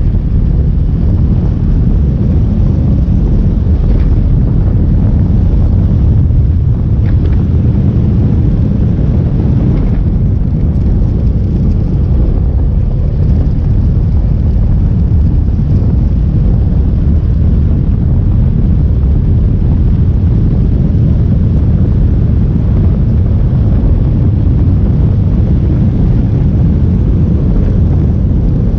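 Motorcycle riding along a road: steady low wind buffeting on the microphone mixed with engine and road noise, continuous and loud.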